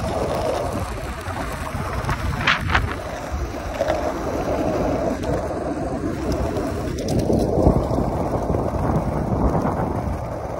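Steady rumble of wheels rolling over rough asphalt, with wind buffeting the microphone. A short sharp scrape about two and a half seconds in.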